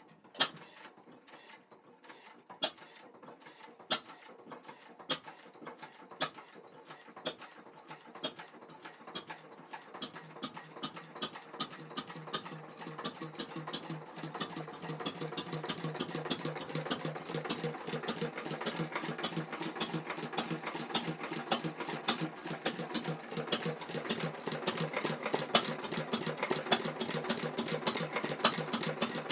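1921/22 Lister H Bruston lighting-plant stationary engine starting up. A few separate firing strokes come about a second apart, then it fires faster and faster into a steady clattering run that grows louder as it picks up speed.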